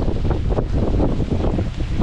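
Storm wind buffeting the microphone hard: a loud, low, gusty blast that swells and drops irregularly.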